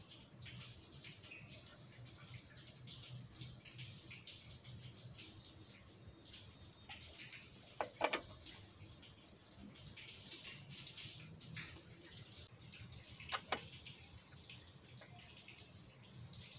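Socket ratchet clicking faintly as it turns the bolts of a Nissan Frontier D22's top-mount turbo intercooler, with two sharper metallic clinks, one about eight seconds in and another about five seconds later.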